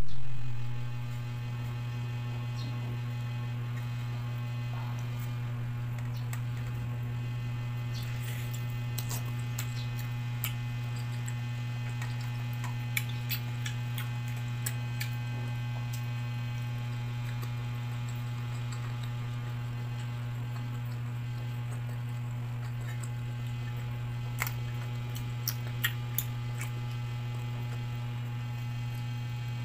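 A steady low electrical hum runs throughout and is the loudest sound. Over it come scattered faint clicks and wet mouth sounds of eating with the fingers, bunched in a few stretches.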